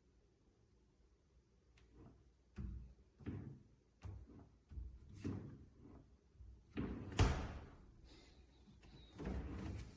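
Knocks and clunks of a fridge-freezer's doors and fittings being opened, shut and handled, one every half second to second. The sharpest click comes about seven seconds in.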